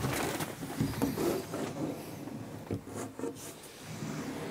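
A motorhome's interior bedroom door being pulled shut, the wooden panel rubbing and scraping as it moves, with a couple of light clicks about three seconds in.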